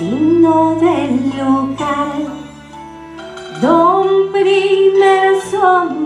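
Song: a woman singing a slow melody, swooping up into long held notes twice, over instrumental accompaniment.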